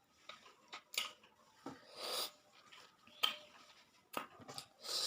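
Close-up eating sounds: several sharp mouth clicks and smacks, with two short hissy slurps.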